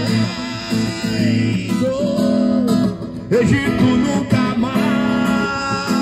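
Acoustic guitar playing chords, with a voice singing a melody over it.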